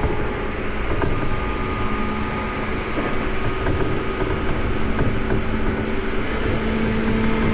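Seibu 2000 series electric train running, heard from inside the car: a steady rumble of wheels on rail with faint steady motor whine.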